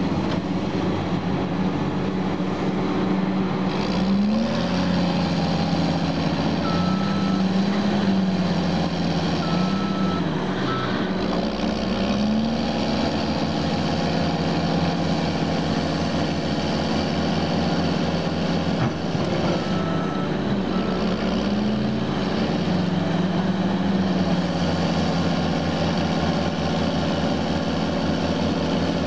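Heavy diesel engine of a Caterpillar D6R crawler bulldozer stuck in mud, revving up and down as it works to climb out. A reverse back-up alarm beeps in a few short spells.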